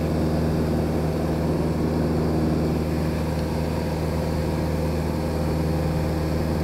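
Cessna 182G Skylane's Continental O-470 six-cylinder engine and propeller running steadily in flight: a constant, even drone heard inside the cabin.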